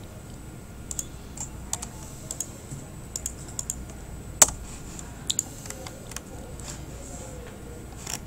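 Scattered keystrokes on a computer keyboard, irregular and spread out, with one much louder click about four seconds in.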